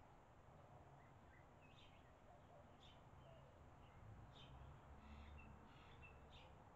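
Faint, short high chirps from barn swallows at their mud nest, about one a second, over a faint low background rumble.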